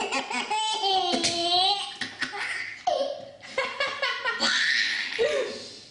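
A baby laughing hard at a sneeze, in several high-pitched bursts of laughter.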